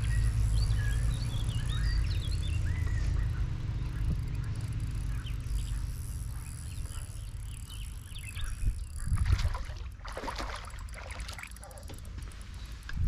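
Small birds chirping over a steady low rumble, with the rumble loudest in the first half. About nine seconds in, a few short, rough noises break in.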